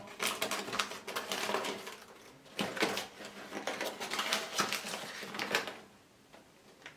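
Paper microwave popcorn bag being handled and pulled open, crinkling and rustling in two spells with a short pause between, stopping about six seconds in.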